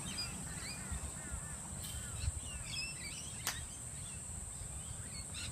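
Small birds chirping over a steady high-pitched insect drone. A single sharp click about three and a half seconds in fits a sand wedge striking a golf ball.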